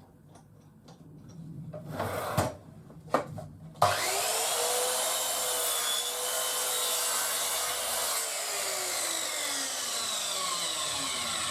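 A few knocks of wood being placed on the table. Then the 1500 W motor of a Titan TTB598MSW sliding mitre saw switches on with a quickly rising whine and runs for about four seconds with a rough sawing noise as it cuts through a board. It is then switched off, and the whine falls steadily as the blade spins down.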